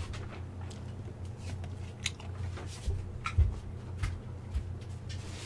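Footsteps and a few light knocks from a person getting up and walking away, scattered irregularly over a steady low hum.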